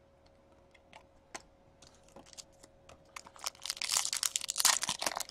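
A few light clicks as trading cards are handled. Then, from about three seconds in, a dense crinkling and tearing that grows louder as a hockey card pack's wrapper is torn open.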